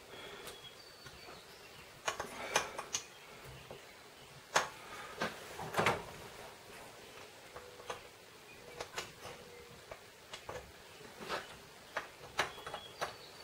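Irregular light clicks and taps from hands pushing the wrist pin out of a 1972 Honda CB750 piston.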